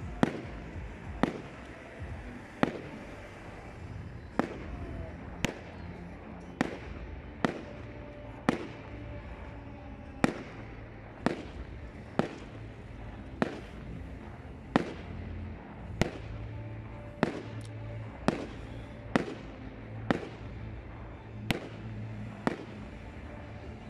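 Aerial firework shells bursting in a steady series of sharp bangs, about one a second, each with a short echoing tail, and a quick cluster of three near the middle.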